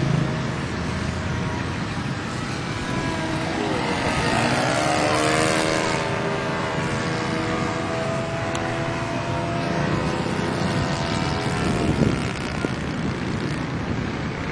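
Engine and propeller of a radio-controlled YAK-54 model aerobatic plane in flight. The engine note climbs in pitch about four seconds in, holds high and steady, then falls away near the end.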